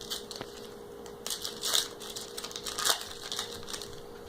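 A trading card booster pack's foil wrapper being torn open and crinkled, in a few short bursts of crackling.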